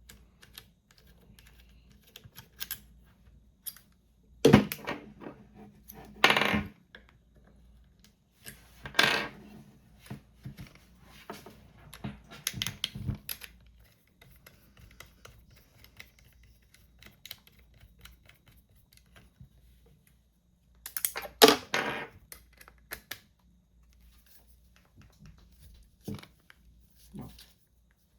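Clicks and short clattering rattles of a GoPro magnetic latch camera mount being handled and shaken, in separate bursts with quiet gaps between.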